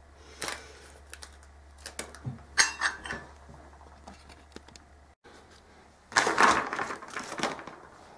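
Small metal parts and hand tools clicking and clinking on a wooden workbench as they are picked through, a few sharp light taps at first, then a louder burst of rummaging and clatter near the end.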